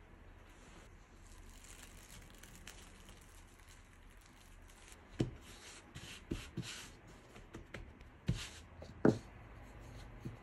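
Cloth and plastic wrap rustling as they are pulled off dough, then from about halfway several sharp knocks and thumps of hands, dough and a wooden rolling pin on a silicone baking mat, the loudest near the end.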